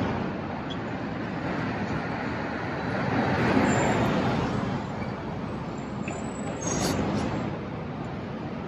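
City street traffic: a steady hum of passing motor vehicles, with one vehicle going by louder about three to four seconds in.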